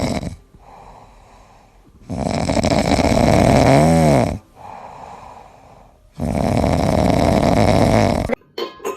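Loud snoring: long rasping snores about every four seconds, with quieter breaths between them. The middle snore swells up and down in pitch near its end.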